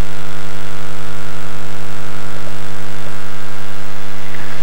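A steady, loud hum with many evenly spaced overtones that does not change, with a few faint clicks near the end.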